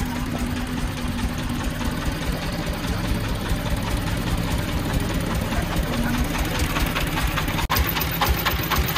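Diesel engines running steadily, a mini excavator's engine together with a three-wheeled công nông farm truck's single-cylinder diesel idling with a fast knocking beat. A brief break comes near the end, after which the truck engine's firing beat is heard close up.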